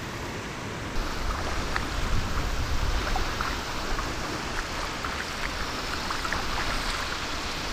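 Shallow water running and splashing over a concrete spillway: a steady rush scattered with small splashes. It grows louder about a second in.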